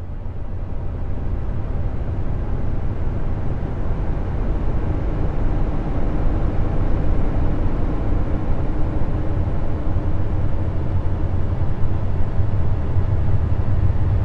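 Space sound presented as the sound of one of Jupiter's moons: a deep, steady rumble under a dense hiss with faint held tones. It starts abruptly and grows a little louder over the first couple of seconds. Such moon sounds are sonified spacecraft radio and plasma-wave recordings.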